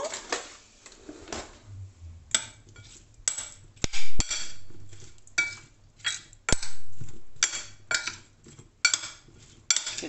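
Metal teaspoon stirring diced raw potatoes in a glass bowl, clinking against the glass in repeated sharp taps, each with a short ring, the loudest about four seconds in.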